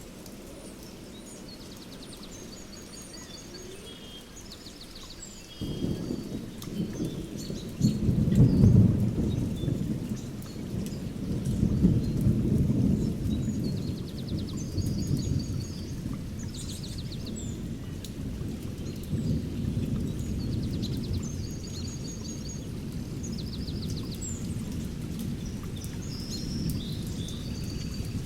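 Thunder rumbling over steady birdsong. The rumble breaks in suddenly about five seconds in, is loudest a few seconds later with a second peak soon after, then rolls on more softly while small birds keep chirping.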